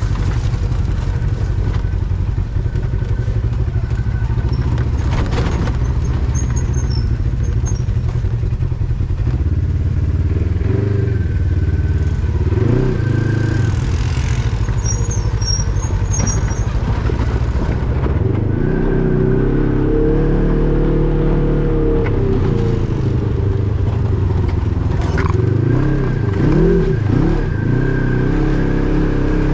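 Off-road vehicle engine running under changing throttle, its pitch rising and falling as it accelerates and backs off, with a few knocks from the machine working over rough trail.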